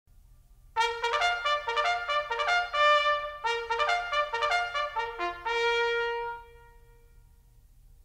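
A short trumpet fanfare: two phrases of quick notes, ending on a long held note that cuts off about six and a half seconds in.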